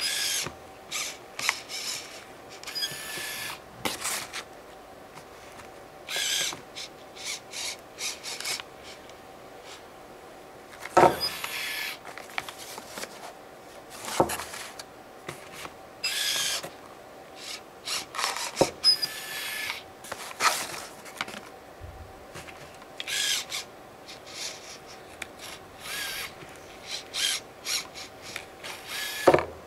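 A gloved, trigger-operated gripper scraping and rubbing against a tabletop and a small cardboard box in short irregular strokes, with a few sharp clicks and knocks among them. A faint steady hum runs underneath.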